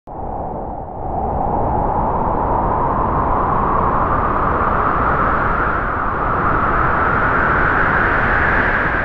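Horror sound effect: a loud rushing, rumbling noise that starts abruptly and slowly rises in pitch.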